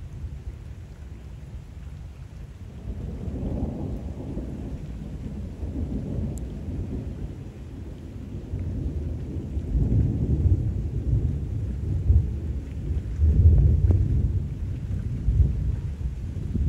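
Long rolling thunder that swells a few seconds in and comes in heavier waves through the second half, over the steady hiss of rain falling on canal water.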